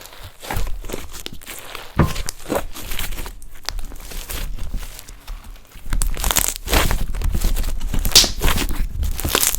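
Glue-based slime being handled by hand, giving irregular wet crackles and pops. It gets louder and busier about six seconds in.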